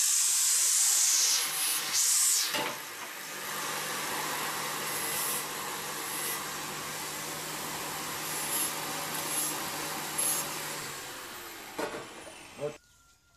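Angle grinder cutting a slot into a sheet-steel box. It is loudest and shrillest for the first two and a half seconds, then runs on more steadily with a low motor hum. It is switched off near the end and its whine falls as it winds down.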